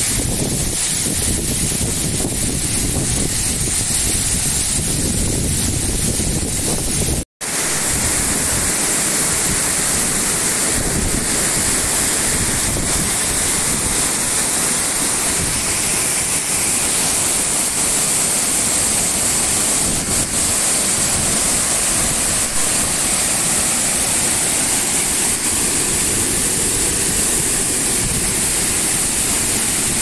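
Waterfall cascading down rock, a steady rush of falling water, cut off for an instant about seven seconds in. In the first seconds, wind buffeting the microphone adds a low rumble.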